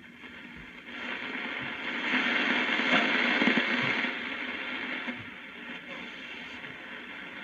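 1952 Philco Transitone 52-542 AM tube radio giving off hissing static from its speaker while the dial is tuned between stations. The static swells about a second in and drops back after about four seconds.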